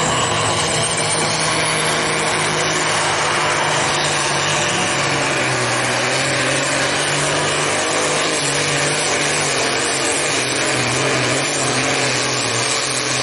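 Diesel engine of an International pulling tractor running at full throttle under heavy load as it drags the weight sled down the track. It is a loud, steady, unbroken engine note.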